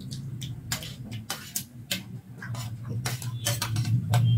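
Close-miked eating of hard, water-soaked raw rice: steel spoons clinking and scraping on stainless steel plates while the grains are chewed, heard as irregular sharp clicks and crunches over a low steady hum.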